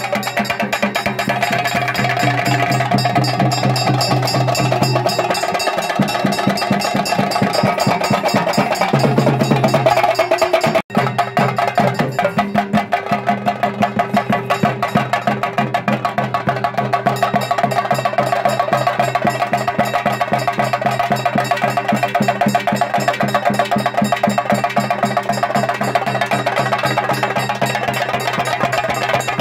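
Theyyam ritual music: drums beaten in a fast, even stream of strokes with held pitched tones over it. The sound cuts out for an instant about eleven seconds in.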